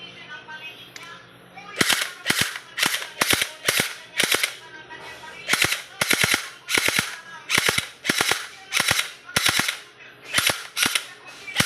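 Gel blaster pistol firing shot after shot, sharp cracks each with a short hiss, about two a second, starting about two seconds in.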